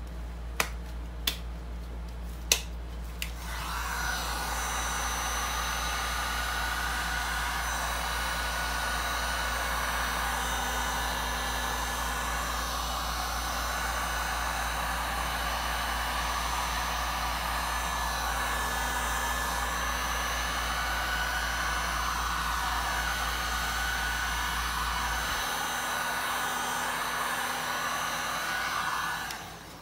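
Heat gun blowing hot air over freshly poured epoxy resin: a steady rush of air with a faint whine. It starts about three seconds in, after a few sharp clicks, and cuts off just before the end.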